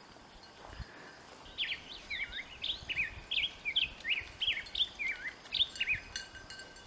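A bird calling in a rapid run of short chirps that slide downward in pitch, starting about a second and a half in and going on for about four seconds. It is an alarm call, warning that people are walking nearby.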